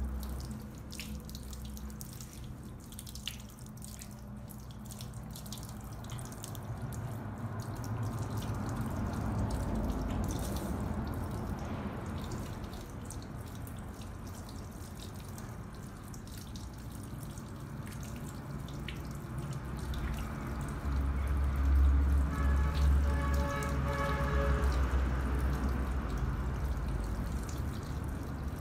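Water trickling and dripping into a salon shampoo basin while wet hair is washed and combed over it. For a few seconds about three-quarters of the way through, a steady pitched tone with several notes sounds over it.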